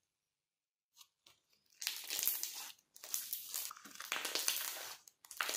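Blue-green stretchy 'mochi' slime (Maoxiu's 炸耳小麻薯) being folded and pressed between the hands, making a dense crinkly crackling. The crackling starts about two seconds in and comes in three long runs.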